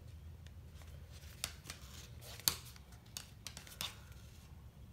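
Faint scattered ticks and rustles of a needle and thread being pulled through the holes of a paper book block as the book is turned in the hands, with one sharper click about two and a half seconds in.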